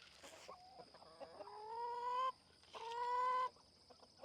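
Chickens calling as they are fed: a few short clucks, then two drawn-out, slightly rising calls about half a second apart.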